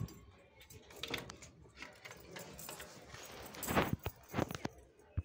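Scattered metallic clinks and rattles as a pet monkey handles a ring of keys and its chain, the loudest cluster a little under four seconds in.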